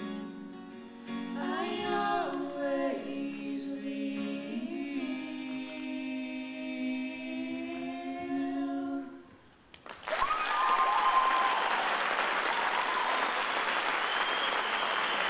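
Voices singing in close harmony hold the final notes of a slow song, which fade out about nine seconds in. About a second later, audience applause breaks out and goes on steadily, with a few cheers.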